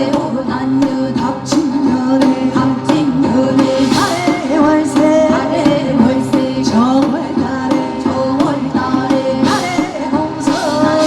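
Live Korean fusion music mixing traditional folk music with modern elements: a singing voice and a sliding melody over a steady drum beat.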